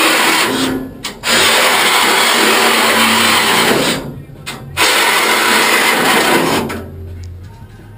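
Reciprocating saw cutting through the steel tubing of an IBC tote cage. It runs in three stretches with two short pauses between them, then stops shortly before the end.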